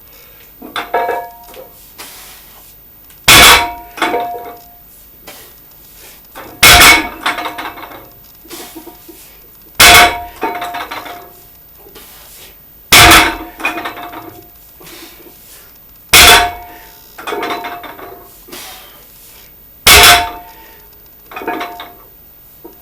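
Metal gym weights clanging down in a steady series of repetitions: six loud metallic clangs about every three seconds, each ringing briefly, with lighter clinks between them.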